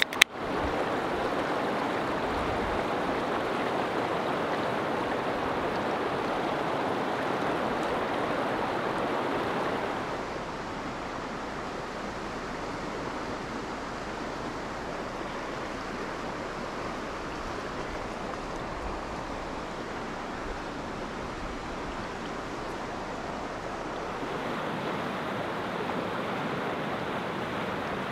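Running water of a stream, a steady rushing hiss. It drops to a softer level about ten seconds in and grows louder again near the end, with a sharp click at the very start.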